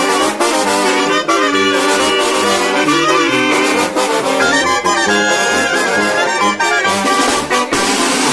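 Mexican banda brass ensemble playing a loud, rhythmic tune, with trumpets and trombones over a steady beat; a held, wavering high note sounds about midway.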